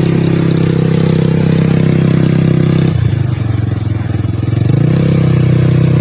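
ATV engine running steadily, its pitch dropping about halfway through and rising again a couple of seconds later as the throttle eases off and opens up.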